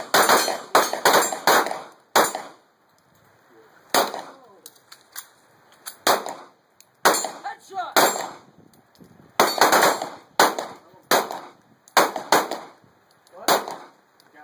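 Several pistols fired by a line of shooters at once. Sharp shots come in quick overlapping strings, with short pauses of a second or two between clusters.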